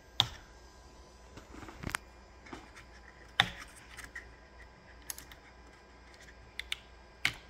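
Handling noises at a 3D printer's hotend: a handful of sharp plastic clicks and knocks, irregularly spaced, with light rubbing between them, as fingers work the rubber silicone sock off the nozzle.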